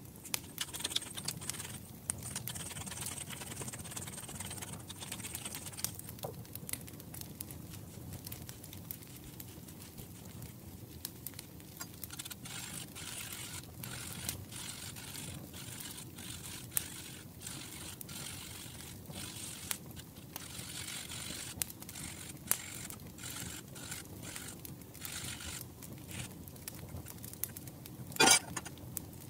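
A pepper mill grinding at first, then a lemon being zested on a fine metal rasp grater over a glass bowl: repeated high rasping strokes with scattered small taps and clicks. One sharp, ringing knock near the end.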